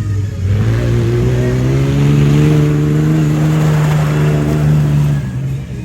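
Off-road race vehicle's engine revving hard under acceleration. Its pitch climbs over the first couple of seconds, holds high, then drops away about five seconds in.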